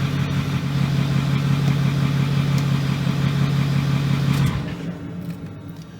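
Ford Super Duty pickup engine idling steadily with the newly charged air conditioner running; the steady hum cuts off about four and a half seconds in.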